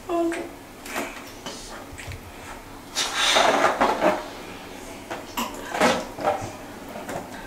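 A person blowing up a rubber balloon by mouth: a long blow about three seconds in, then several short breaths.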